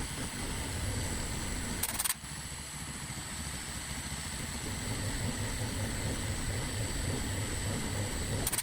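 Homemade CNC milling machine running on test, a steady high-pitched whine over a low mechanical rumble, with brief bursts of hiss about two seconds in and again near the end.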